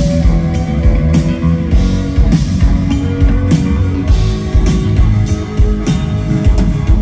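Live rock band playing through a PA during a sound check: guitar notes over bass and drums.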